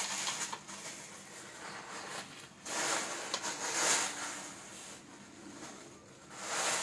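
Rustling and light handling noise from hands working on a gaming chair's parts during assembly, swelling in a few short bursts.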